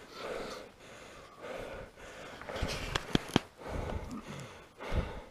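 A climber breathing hard close to the microphone in soft, regular puffs. There are a few sharp clicks and knocks around the middle, and low thumps near the end.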